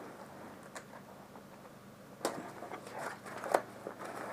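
Rustling and handling of a nylon gear pack and its straps, with a few sharp clicks: one about a second in, one past two seconds, and the loudest about three and a half seconds in.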